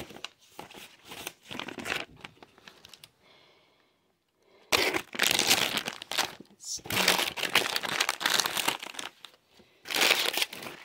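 Foil chip packets and paper crinkling and rustling as a hand rummages through a bag of snacks: softer rustling at first, a short pause about four seconds in, then loud crinkling bursts for the rest.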